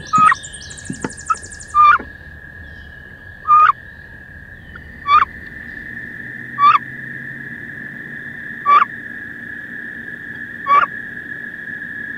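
Wood duck hen calling inside a wooden nest box: seven short calls, one every one and a half to two seconds, over a steady thin high tone.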